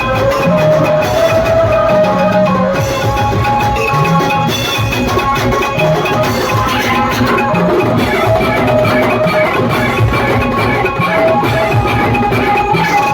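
Loud procession music: a steady drum beat under a held, wavering melody line.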